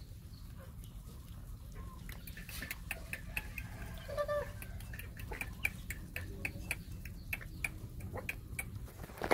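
A dog eating cooked rice from a stainless steel bowl: a run of sharp clicks and smacks from its mouth against the metal, about three a second, starting a couple of seconds in. A brief animal call about four seconds in.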